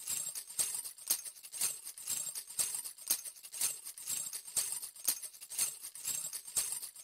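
Jingling hand percussion shaken in a steady beat, about two strokes a second, as the song's intro.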